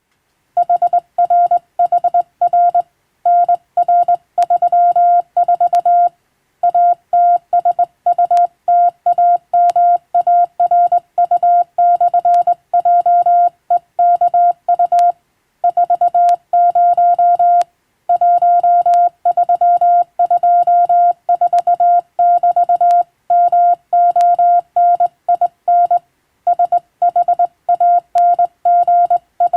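Morse code: a single steady beep tone keyed on and off in rapid dots and dashes, with short pauses between letter groups.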